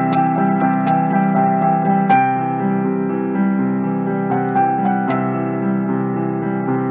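Background keyboard music: slow piano notes over held chords.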